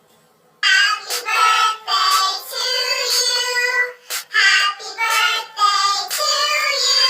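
A group of children cheering and shouting, many high voices at once, starting suddenly about half a second in.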